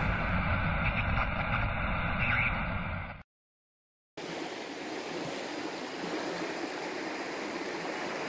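The tail of a logo intro sound effect, a steady rush and hiss that cuts off suddenly about three seconds in. After a second of silence, the steady rushing of river water flowing over stones.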